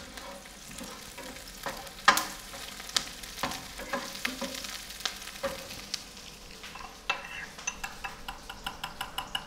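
Chopped onions sizzling in olive oil in a nonstick frying pan, stirred with a wooden spatula that knocks against the pan now and then. Near the end a metal spoon clinks rapidly against a small ceramic bowl as a sauce is mixed.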